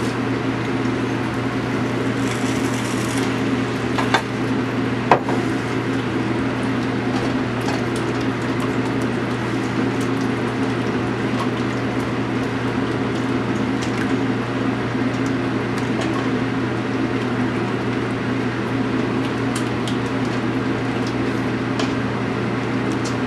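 Steady low hum of a kitchen fan with a faint hiss, broken by two light clicks about four and five seconds in.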